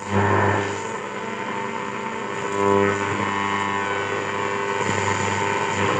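A 1959 Ekco U353 valve radio's loudspeaker giving a steady mains hum under static and hiss while on the medium wave band, with a short burst of tone about two and a half seconds in. The hum comes from old capacitors that need changing.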